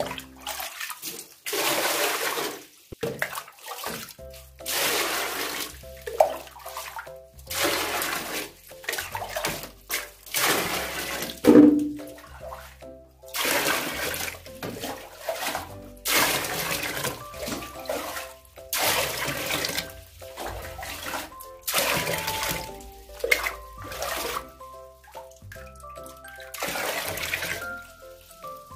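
Water poured into a plastic washbasin again and again, a splash every second or two, with background music playing throughout. A single louder knock comes about twelve seconds in.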